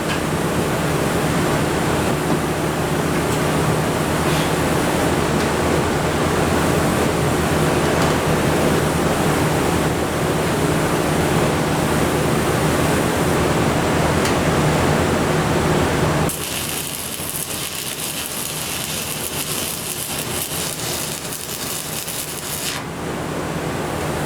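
Stick-welding arc crackling and hissing steadily as a bead is run, over a steady low hum. About sixteen seconds in the sound changes abruptly to a thinner, higher hiss for several seconds.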